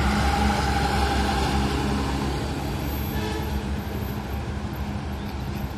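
Diesel engine of a loaded Eicher tipper truck running steadily as it drives past and moves away, its sound slowly fading.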